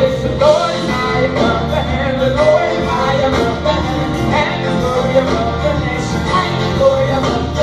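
Live worship music: a band playing steadily, with voices singing along.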